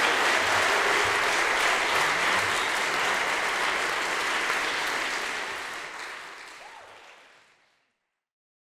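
Audience applauding, fading out about six seconds in and gone before the end.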